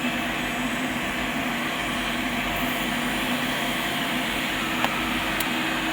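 Steady mechanical hum and hiss of running machinery, with a sharp click near the end.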